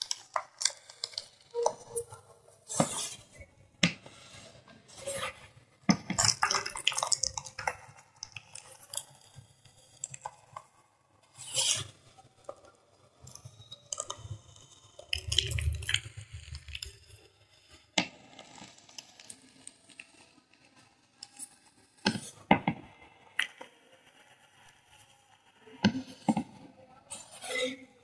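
Thin blocks of gym chalk crushed and crumbled by plastic-gloved hands: irregular bursts of crisp, powdery crunching and crackling with short pauses between.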